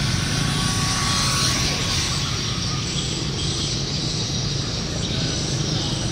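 A steady low mechanical drone with a hiss over it, even throughout with no clear breaks.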